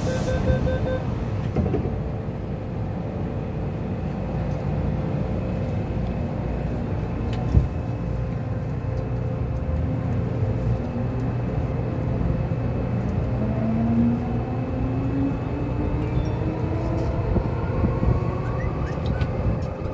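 MTR M-Train subway car running with a steady rumble; from about halfway in, the traction motors give a whine of several tones rising together in pitch as the train gathers speed.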